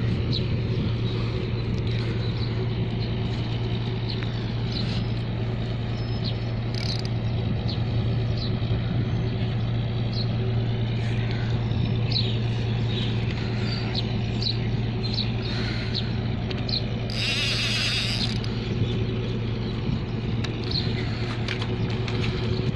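Boat engine running steadily with a low, even hum. About three-quarters of the way through comes a brief hiss lasting about a second.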